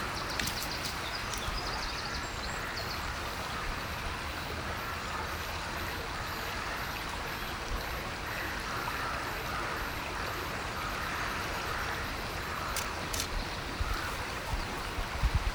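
River water flowing steadily, a continuous rushing noise.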